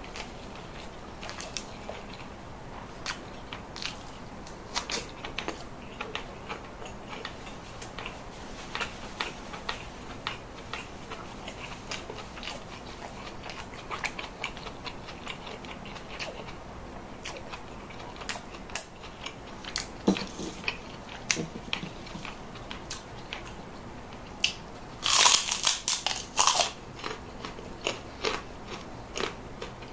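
Close-miked eating: a person chewing with small wet mouth clicks, and a loud burst of crisp crunching about 25 seconds in. The food is spicy grilled chicken with sambal, raw vegetables and crackers.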